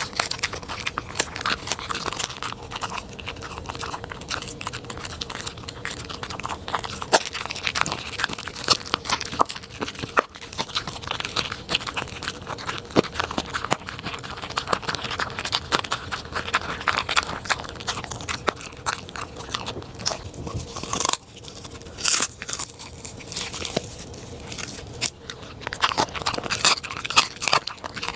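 A corgi chewing and crunching its food, with many quick, irregular crunches and bites.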